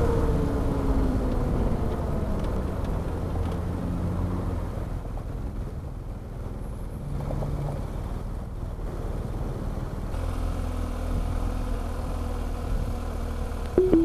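BMW R1200 GS Adventure's boxer-twin engine on the move: its note falls as the bike slows for a turn, it runs quieter for a few seconds at low speed, then it picks up again about ten seconds in as the bike pulls away.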